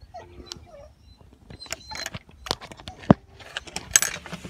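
Handling noise from a phone being moved about: irregular scrapes and clicks, with one sharp knock about three seconds in.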